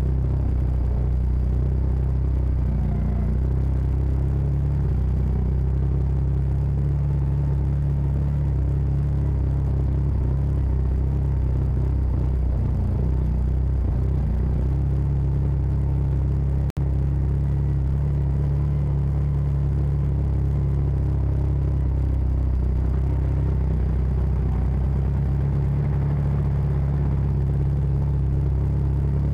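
CF Moto side-by-side's engine running steadily while driving, a constant low drone. The sound drops out for an instant a little past halfway.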